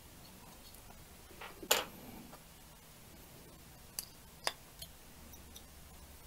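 A few light, sharp clicks and taps of small plastic parts being handled, the loudest about two seconds in and a quick cluster of three near the middle.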